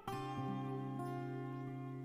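Background music on acoustic guitar: a chord struck just at the start and left to ring, slowly fading.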